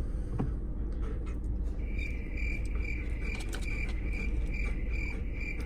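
Car's warning chime beeping rapidly, about three high beeps a second, starting about two seconds in, over the steady low hum of the car.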